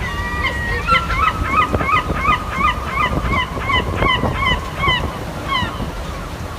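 A bird calling in a rapid run of short, hooked notes, about three a second, over a steadier held tone, then trailing off shortly before the end.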